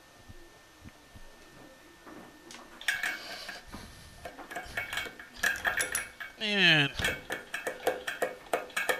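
Metal tool clinking and scraping against the faucet's brass shanks and washers under a sink, starting about three seconds in and growing busier, with a short squeak about two-thirds of the way through.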